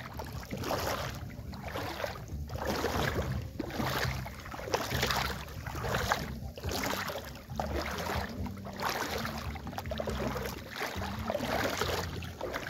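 Someone wading through shallow water, each step a splash and slosh, about one a second.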